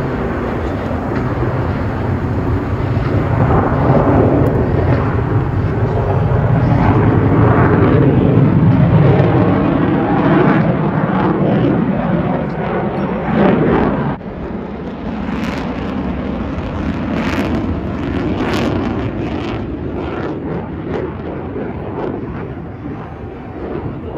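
Airplane flying past, a loud rushing engine noise that swells over several seconds and drops off sharply about fourteen seconds in, with fainter aircraft noise continuing after.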